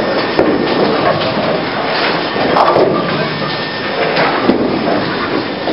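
Bowling alley din: bowling balls rolling down the lanes and pins clattering, with a few sharp knocks.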